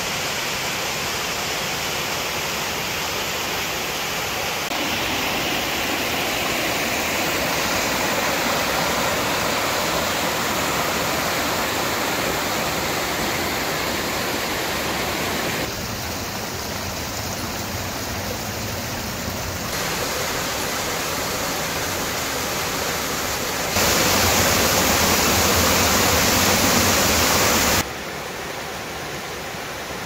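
Mountain stream and small waterfalls rushing over boulders: a steady hiss of water. Its loudness changes abruptly several times and is loudest about three-quarters of the way through.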